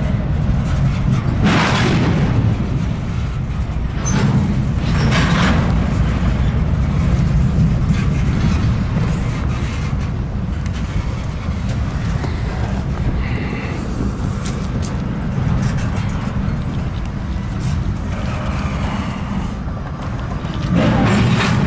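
Double-stack intermodal freight train's loaded well cars rolling past at close range: a steady low rumble of steel wheels on rail, with a few brief louder surges of hiss.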